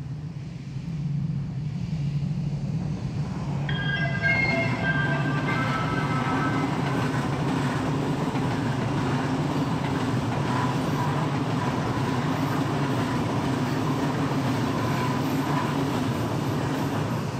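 A train running by with a steady low rumble. About four seconds in, a whining tone steps through several pitches for a few seconds.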